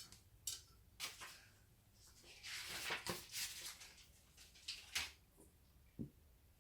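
Faint clicks, knocks and a short scraping rustle of computer parts being handled and fitted, as a hard drive goes into its drive tray: about half a dozen separate clicks, with a longer scrape about halfway through.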